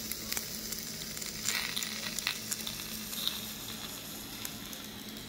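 Cubes of pork belly sizzling in a dry Saladmaster electric skillet with no oil, rendering their own fat. A steady hiss with scattered small pops.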